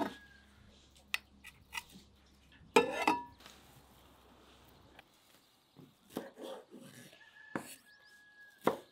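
Kitchen prep sounds: a few light clicks and a loud clatter with a brief ring about three seconds in, then fresh herbs rustling and knife chops on a wooden cutting board near the end.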